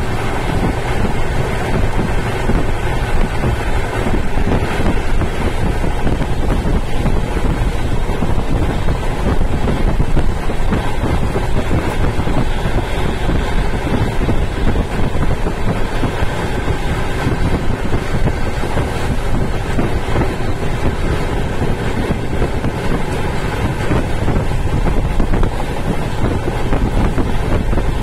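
Steady rush of wind and running noise from aboard the 12274 Howrah Duronto Express travelling at speed, with wind buffeting the microphone.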